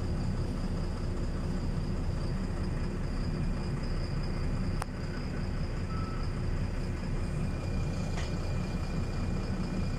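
Inside a LiAZ 5292.22 city bus on the move: a steady low rumble of its diesel engine and road noise, with a thin steady high whine over it. A single sharp click sounds a little before halfway through.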